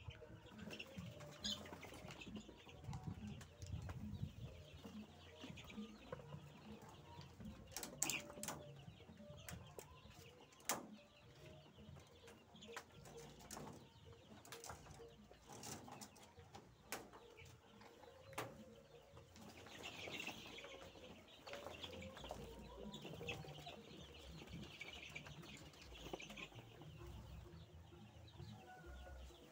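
Faint sounds of caged laying hens: low clucking and wing-flapping, with a few sharp knocks scattered through and a stretch of higher-pitched calls about two-thirds of the way in.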